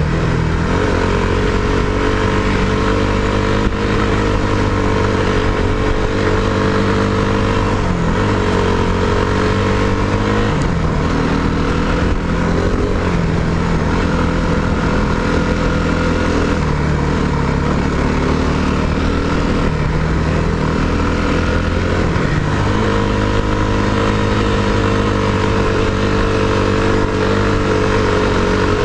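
Four-stroke dirt bike engine running under way, its pitch dropping and climbing several times as the throttle and gears change.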